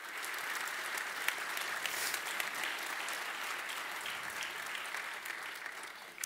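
Audience applauding, a dense patter of many hands clapping, fading out near the end.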